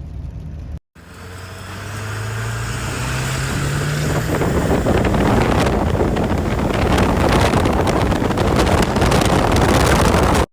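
2002 Ford F250's 7.3 Powerstroke turbodiesel V8 under hard acceleration: the engine note climbs in pitch and grows louder for a few seconds, then stays loud until it cuts off abruptly.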